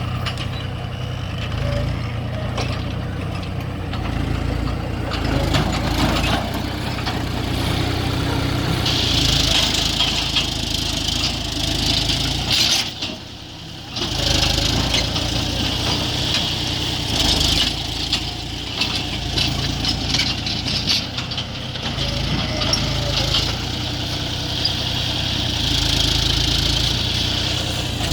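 Tractor engine running steadily with a low rumble. A higher hiss joins about a third of the way in, and the sound briefly drops away near the middle.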